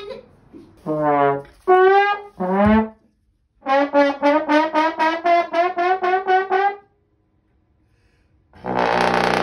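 Trombone played in short comic phrases: three wavering notes, the last sliding down, then a quick run of about ten repeated tongued notes on one pitch. Near the end comes a loud, raspy blast.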